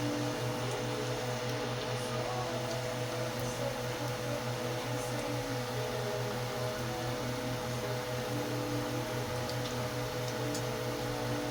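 Steady mechanical hum of a running motor, with a few faint ticks.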